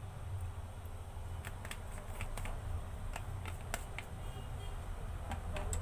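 Scattered light clicks and taps from a plastic water bottle being handled close by, over a steady low hum.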